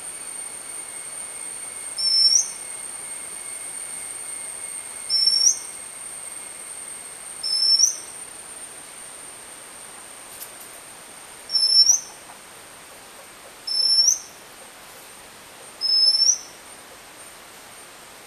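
Male Oriental magpie robin calling: six short, clear, rising whistled notes, spaced about two to four seconds apart. A steady, faint high-pitched tone runs behind them.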